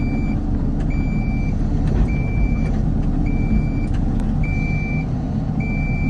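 Cat 308E2 CR mini excavator's diesel engine running under hydraulic load, with a warning beeper sounding one high, steady tone about every second, about six beeps in all. The beeping is the cab alarm for the hydraulic quick coupler while its unlock cycle runs.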